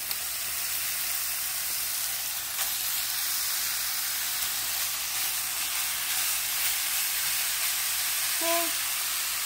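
Raw ground beef sizzling steadily in a hot frying pan, just after being dropped in to brown.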